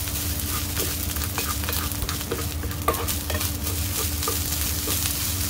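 Frozen shrimp pilaf sizzling in a cast-iron skillet while a plastic rice paddle stirs and scrapes it around the pan, with many short scrapes and clicks over a steady frying hiss.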